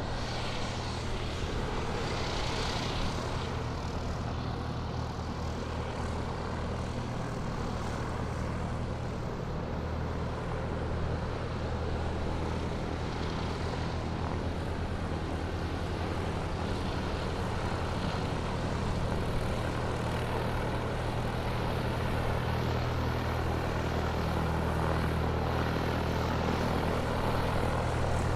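Airplane taxiing, its engine running steadily with a low, even hum, growing slightly louder toward the end.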